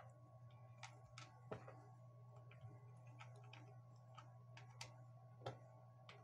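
Faint, scattered clicks and taps of small screws and fingers on a Bosch drill's plastic housing as it is screwed back together, over a low steady hum.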